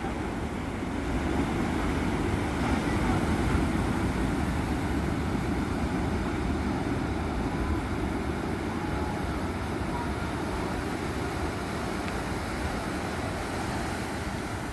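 Pacific Ocean surf: big waves breaking and washing in as a continuous rumbling hiss, swelling a couple of seconds in and slowly easing.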